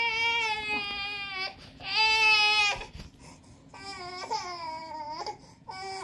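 Toddler crying in long high wails, four cries with short breaks between them, the second the loudest.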